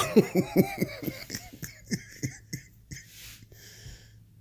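A man's sarcastic laugh, a quick run of short pitched bursts that fades out over about two seconds, followed by a breath.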